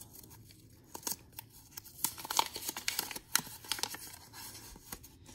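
A folded slip of paper being unfolded by hand, crinkling and rustling in short irregular crackles.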